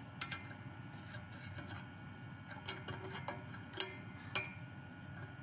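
Small metallic clicks and ticks of snap ring pliers and a steel snap ring being worked into its groove on a CVT secondary clutch's helix: one sharp click just after the start, scattered lighter ticks, and two more clicks later on.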